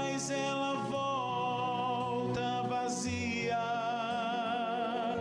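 Portuguese-language gospel song: a singer holds long notes, with vibrato on one near the end, over instrumental accompaniment.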